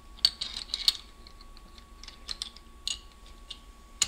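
Small metal transmission parts clicking and clattering as they are fitted by hand into the transmission case. There is a quick cluster of clicks in the first second, a few scattered taps after that, and one sharp click near the end.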